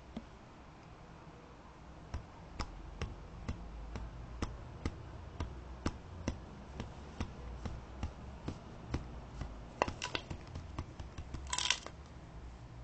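A red lory pecking at a plastic bottle: a run of sharp taps, about two to three a second, starting about two seconds in, with a short rasping burst near the end.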